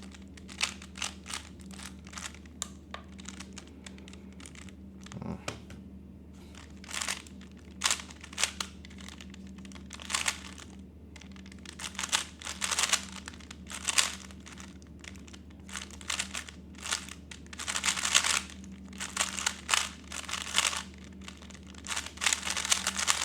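A 3x3 Rubik's cube being turned fast in a timed solve: runs of rapid plastic clicking and clattering as the layers turn, in uneven bursts with brief pauses, thickest near the end. A steady low hum runs beneath.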